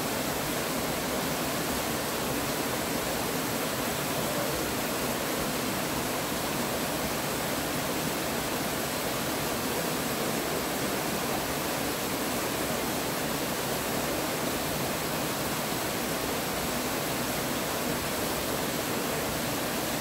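Waterfall pouring down a rock face into a plunge pool: a steady, unbroken rush of falling water.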